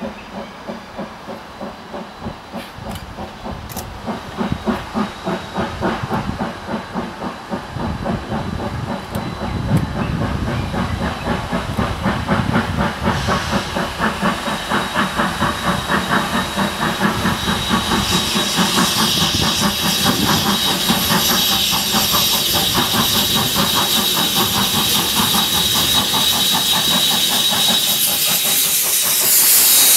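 Steam locomotive C847 approaching and running past, its exhaust chuffing in a beat that quickens and grows louder. Steam hiss builds over the second half and is loudest as the engine draws level near the end.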